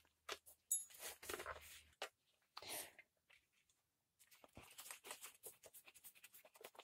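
Faint handling sounds of a screwdriver working the screws out of a petrol brush cutter's plastic engine cover: a few small scrapes and clicks, then a run of light clicks in the second half.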